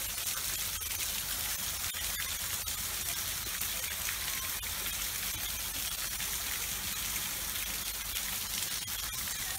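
Steady rushing of water, an even unbroken hiss with a low rumble underneath.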